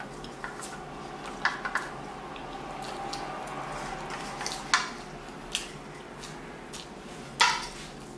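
A plastic spoon clicking and scraping against an aluminium foil takeout container, a few separate sharp clicks spread out, with chewing between them over a steady low hum.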